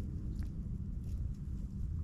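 Wind buffeting the microphone as a steady low rumble, with a couple of faint short ticks about half a second and a second in.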